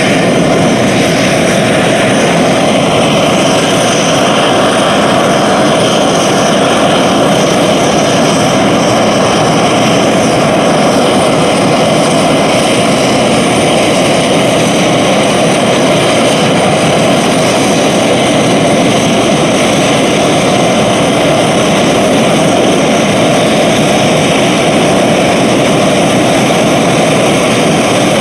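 Bombardier Challenger 604 business jet's turbines running steadily on the ground: a loud, constant turbine noise with a faint high whine above it.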